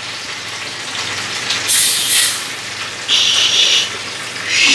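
Carbonated soda water fizzing with a steady crackling hiss, broken by three short, louder hisses about a second and a half apart as the soda is poured or the bottle is opened.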